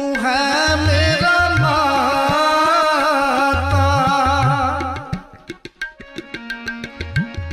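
Sikh shabad kirtan: a singer's voice over tabla, the bass drum's strokes bending upward in pitch. About five seconds in the singing stops and crisp tabla strokes carry on alone.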